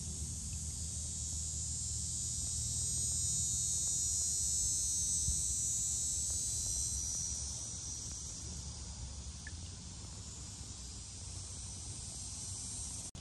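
A high, steady chorus of insects shrilling, loudest in the first half and fading after about seven seconds, with a low rumble underneath.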